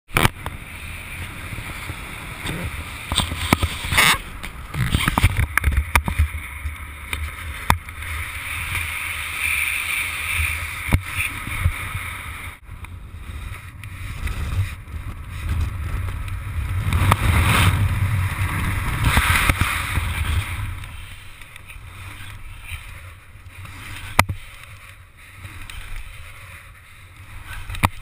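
Wind rushing over and buffeting the microphone of a camera carried in paraglider flight, with a heavy low rumble that swells and eases in gusts. A few sharp knocks sound through it.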